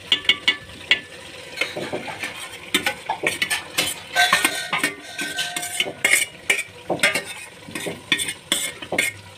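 Spoon scraping and clinking against a bowl as masala paste is scraped into a pot of chicken, with irregular clicks and scrapes throughout. The chicken sizzles steadily in the oil beneath.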